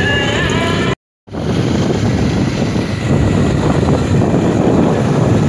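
Music for about a second, a brief dropout, then a motorcycle on the move: steady engine rumble mixed with wind buffeting the microphone.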